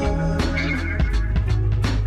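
Indie pop song with a drum kit keeping a steady beat over bass and sustained instrument notes, between sung lines.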